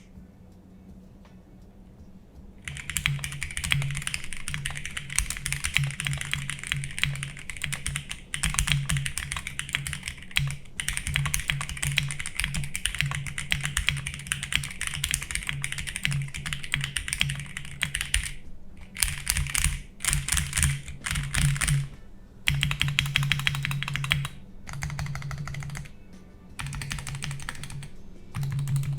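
Fast typing on a Royal Kludge RK68 mechanical keyboard with JWICK Black linear switches and PBT keycaps in an acrylic case: dense runs of key clacks starting about three seconds in, broken by a few short pauses in the second half.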